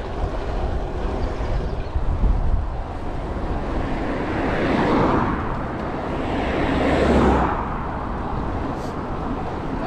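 Road traffic noise with a steady low wind rumble on the microphone; two vehicles pass, swelling up and fading away about five and seven seconds in.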